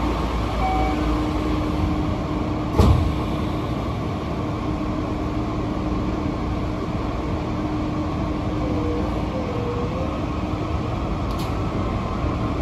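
Yokohama Green Line 10000 series linear-motor subway train running through a tunnel, heard from inside the rear cab: a steady rumble of wheels and car body with a faint steady whine, and one sharp loud knock about three seconds in.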